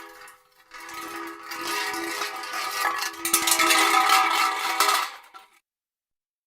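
Metal car hubcap spinning and wobbling down on concrete, a ringing metallic clatter that grows faster and louder, then stops abruptly about five and a half seconds in.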